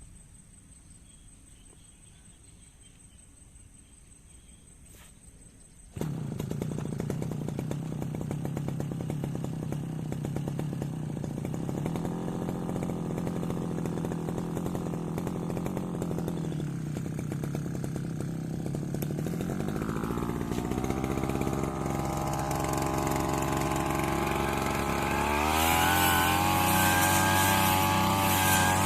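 Brush cutter engine comes in suddenly about six seconds in, after a quiet stretch, and runs steadily with some wavering in pitch. About three-quarters of the way through it revs up, louder and higher.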